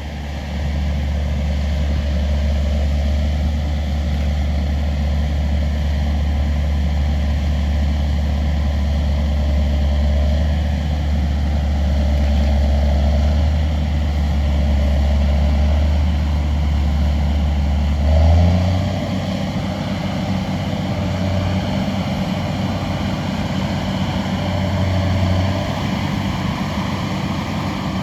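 New Holland 8.90 combine running steadily while harvesting corn: a loud, constant engine and machinery drone with a deep hum. About two-thirds of the way through, the hum shifts up in pitch and the sound turns a little quieter.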